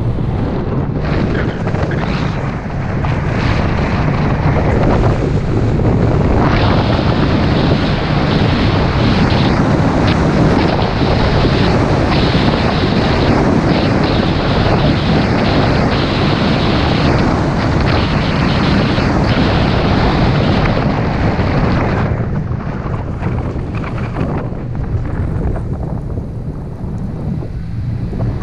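Heavy wind noise buffeting the microphone of a GoPro Hero5 Black mounted outside a moving car: a loud, steady rushing with a deep rumble underneath. It thickens a few seconds in and eases off in the last several seconds.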